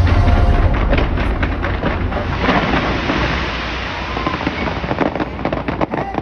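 Fireworks going off in quick succession: deep rumbling booms and sharp bangs, with a dense stretch of crackling in the middle.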